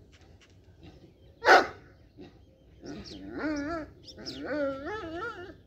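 A dog gives one loud, sharp bark about one and a half seconds in, then two long howls that waver in pitch, each about a second long.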